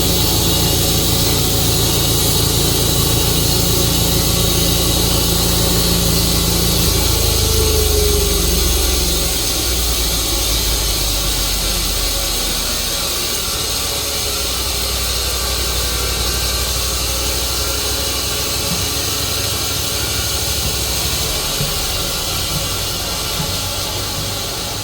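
Tru-Cut sawmill running through a log, its engine droning steadily under a high hiss. About eight seconds in, the engine note shifts and the sound grows a little quieter.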